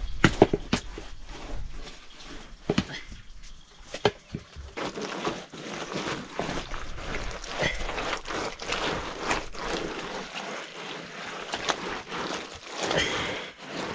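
Wet mud plaster being smeared by hand over an earthen floor: a few sharp knocks in the first four seconds, then a continuous wet smearing from about five seconds in.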